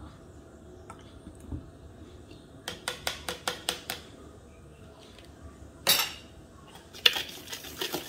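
Measuring spoons and cutlery clinking on a counter: a quick run of light clinks, then one louder clatter about six seconds in as the set of measuring spoons is put down on a plate with a fork and spoon, and a few more clicks near the end.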